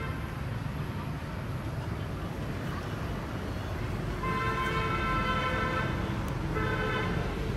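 Low rumble of road traffic, with a vehicle horn sounding twice: a steady blast of about a second and a half starting about four seconds in, then a shorter one near the end.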